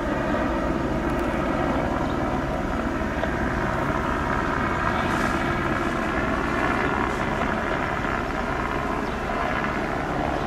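Helicopter overhead, a steady unbroken drone of engine and rotor.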